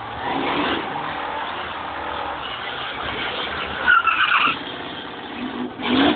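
A car doing a burnout: the engine is held at high revs while the rear tyres spin and skid on the pavement. There are louder surges about four seconds in and again near the end.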